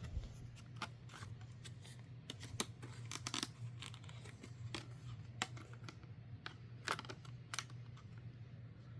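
Irregular clicks, rustles and crinkles of two RAM sticks being unpacked from their plastic packaging, over a steady low hum.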